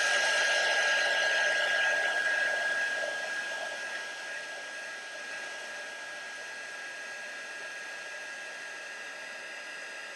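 Handheld craft heat gun blowing hot air onto a shrink-plastic piece, a steady rush of air with a steady high motor whine. It gets noticeably quieter a few seconds in, then holds steady.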